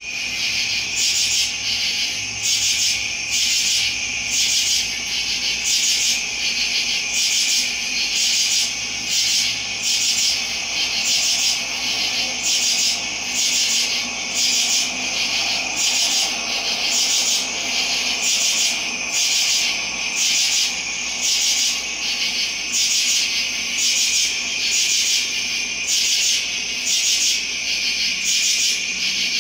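Motorized display turntable running, giving a rhythmic rasping rub that pulses a little more than once a second over a steady high hum.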